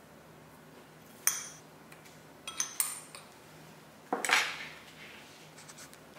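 Metal spoon clinking against a glass bowl: one sharp clink just over a second in, two quick clinks at about two and a half seconds, then a longer, louder clatter about four seconds in.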